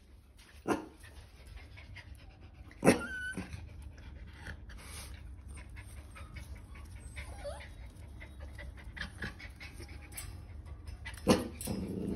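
Dogs panting, with a few short sharp sounds, the loudest about three seconds in and another near the end.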